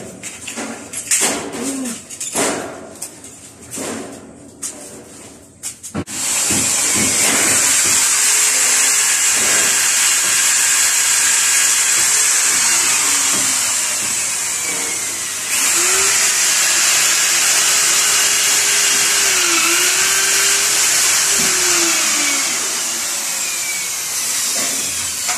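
A few knocks and taps, then about six seconds in a corded electric drill starts up and runs steadily, drilling at the edge of a concrete window opening to fix the window frame. Its pitch dips now and then as it bites, and it lets up briefly about fifteen seconds in.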